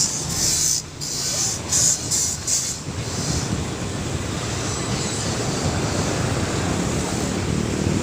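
Steady rushing wind and road noise of a moving vehicle, with gusty hiss for the first three seconds.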